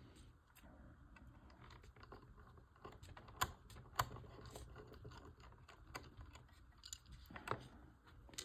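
Faint, irregular light clicks and taps of small model-kit parts and tools being handled on a work surface during assembly, with two sharper clicks around the middle.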